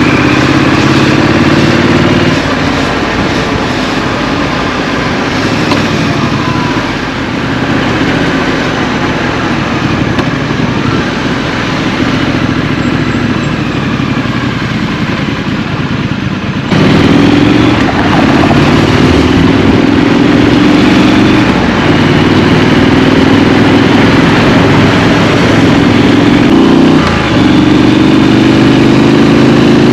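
Scrambler motorcycle's engine heard from the rider's seat on a city ride: for the first half it runs softer at lower, shifting revs, then opens up suddenly with the pitch climbing as it accelerates, with a short dip near the end like a gear change before it climbs again.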